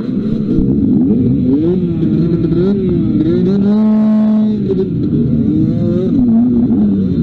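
Dirt bike engine revving up and down under changing throttle, its pitch rising and falling again and again, held at a steady high rev for about a second near the middle.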